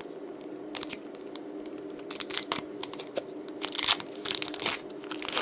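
Foil booster-pack wrapper of a Pokémon card pack being torn open and crinkled: a run of irregular crackling tears and crunches, loudest about four seconds in, over a faint steady hum.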